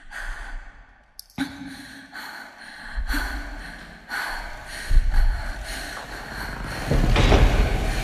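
A person breathing and sighing over a dark, droning intro, with deep booms that come in about three seconds in and again around five and seven seconds, growing louder toward the end.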